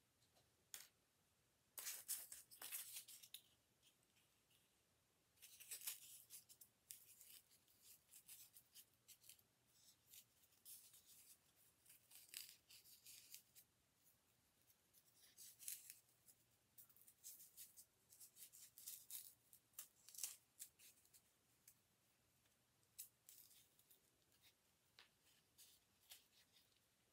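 Faint, scratchy rustling in short bouts as stretchy Lycra fabric is handled around a styrofoam egg and drawn closed on its thread.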